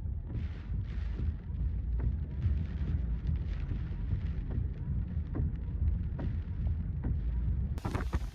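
Typhoon-force wind buffeting the microphone as a heavy, uneven rumble in repeated gusts, with heavy rain and sharp spatters. The sound changes abruptly near the end.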